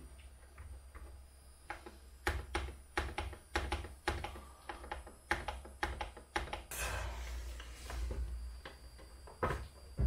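Clicking of the buttons on a Pioneer CDJ-1000MK3 CD player being pressed over and over, about two clicks a second, as the newly replaced cue and play buttons are tested. Near the end comes a couple of seconds of hissing noise and one more click.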